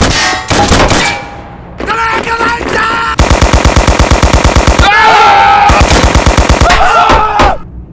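Machine-gun sound effect: a long, steady burst of automatic fire at about ten rounds a second, starting about three seconds in and stopping near the end.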